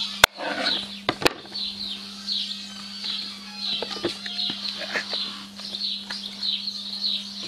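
Two sharp knocks of a wooden cutting board and knife about a second apart near the start, then a few light knife taps on the board as oyster mushrooms are cut. Birds chirp steadily with short repeated notes, over a low steady hum.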